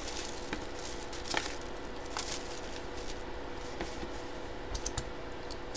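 Hands opening and handling a sealed trading-card box: faint rustling and scraping of the wrapper and cardboard, with scattered light clicks, over a faint steady hum.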